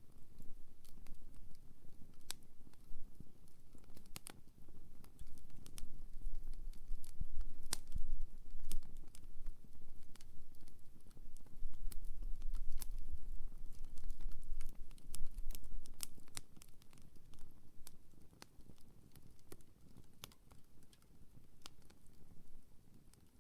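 Wood fire burning, crackling with irregular sharp snaps and pops over a low rumble that swells in the middle and dies down near the end.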